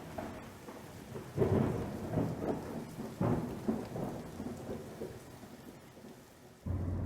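Thunderstorm: rolls of thunder over steady rain, with two loud rumbles that each swell suddenly and fade over a second or two.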